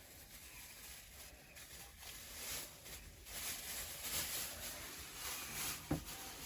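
Faint rustling and handling as a cover is fitted over the motorcycle's open exhaust pipe, with one small knock near the end.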